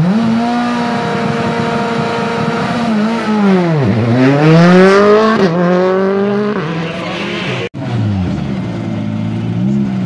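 Turbocharged four-cylinder rally car engines revving at a standstill: the revs rise at the start and are held high, then dip and climb again about four seconds in. The pitch jumps abruptly where the recording cuts between cars, and the sound drops out for an instant near the end.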